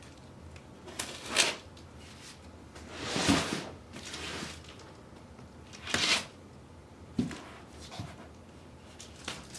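Packing tape being peeled and packaging being handled during an unboxing: five short rustling, tearing strokes, the longest and loudest about three seconds in.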